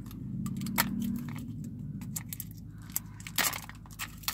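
Plastic packaging of a Smooshy Mushy squishy toy crackling and crinkling as it is ripped open, with scattered sharp clicks and a few louder snaps, over a low steady hum.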